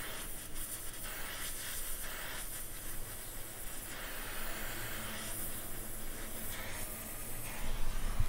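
Uneven hiss of an oxy-fuel gas welding torch flame held on a steel car-body pillar joint while it is welded.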